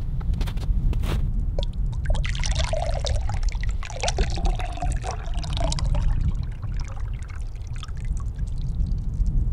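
Orange juice poured into a glass tumbler: a splashing stream that starts about two seconds in and tails off near the end, over a steady low rumble.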